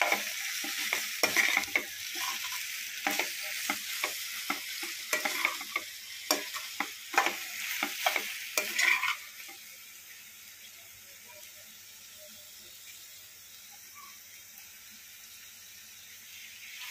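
A metal spatula scraping and clattering in a metal pan as sliced radish frying in oil and spices is stirred, over a constant sizzle. The scraping stops about nine seconds in, leaving a quieter, steady sizzle.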